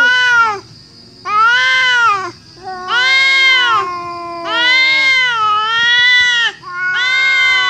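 Two domestic cats yowling at each other face to face: long, drawn-out wavering calls about five times, each rising and falling in pitch, with a lower voice overlapping a higher one. This is the threatening caterwaul of a territorial standoff on the edge of a fight.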